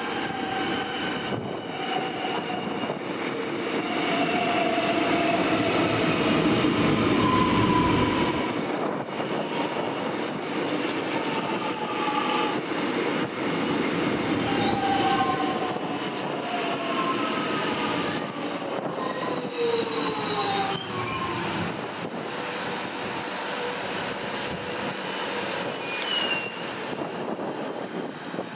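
A Metro Trains Melbourne X'trapolis electric suburban train moving along the station platform. A low rumble is loudest around six to eight seconds in, and over it come high whining tones from the motors and wheels that step and glide in pitch, several falling away around twenty seconds in.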